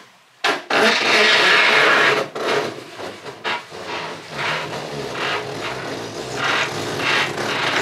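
Davit hoist line being hauled by hand through the clutch on the catamaran's davit post to lift the dinghy: a long rasp of rope running through, then a run of shorter rasps, about two a second, one for each pull.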